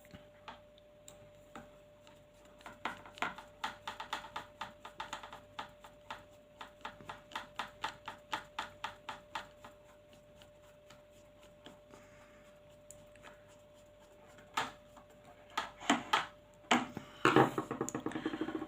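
A long screw being turned into an airsoft rifle's plastic VSR-10 type hop-up unit with a small screwdriver: a run of quick light clicks, about five a second, then a few louder knocks near the end.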